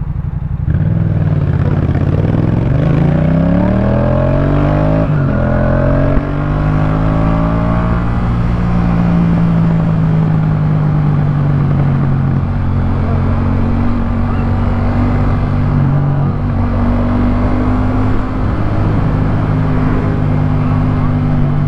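Yamaha MT-07 parallel-twin engine through a Jeskap K4 full exhaust. It pulls away with a rising engine pitch, drops pitch at a gear change about five seconds in, climbs again, then holds a fairly steady cruise.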